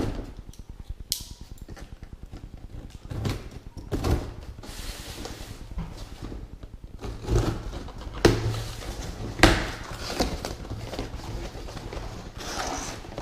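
A product box and its packaging being opened and handled by hand: scattered knocks, clicks and rustling scrapes, with a few sharper knocks.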